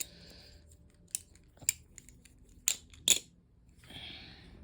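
Balisong (butterfly knife) being handled, its metal handles clicking against each other in four sharp, separate clicks. A brief soft hiss comes near the end.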